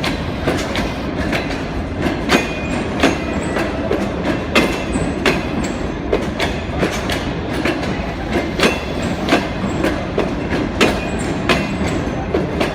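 Passenger train coaches rolling into a station: a steady rumble of wheels on rail with sharp clicks and knocks over the rail joints about once or twice a second, and a few brief high wheel squeals.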